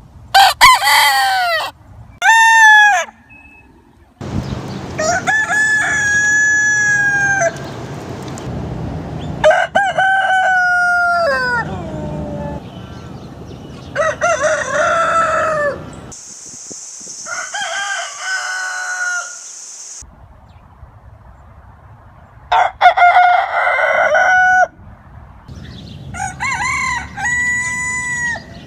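Roosters crowing, one crow after another, about eight crows in turn from different clips, some short and some long and drawn out. A steady hiss sits behind one crow in the middle.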